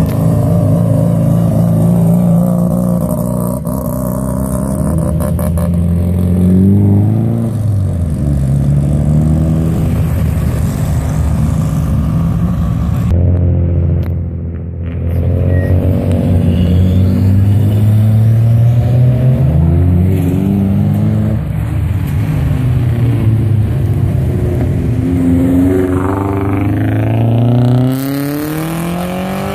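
Car engines accelerating as several cars pull away one after another, the engine note climbing in pitch, dropping back at gear changes and climbing again.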